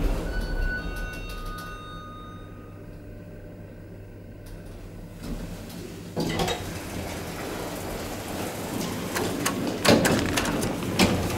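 1999 Schindler traction elevator: the car runs quietly, with a faint high steady whine in the first couple of seconds. Its sliding doors open with a sudden clatter about six seconds in, and near the end a car button is pressed with sharp clicks and knocks.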